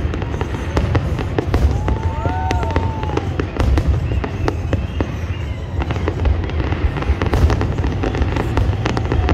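Fireworks display going off: a rapid, irregular series of bangs and crackles over a steady low rumble.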